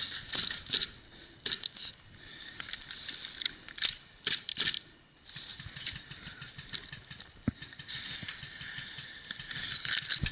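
Rattling with scattered sharp clicks and knocks from an airsoft player's gear and movement, ending in about two seconds of hissing noise.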